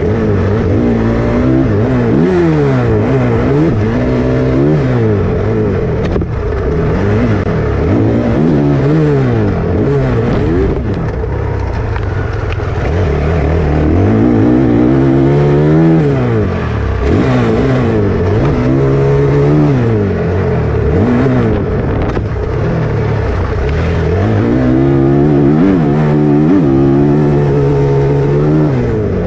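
Motocross dirt bike engine revving hard, its pitch climbing and dropping again and again as the bike accelerates through the gears and backs off.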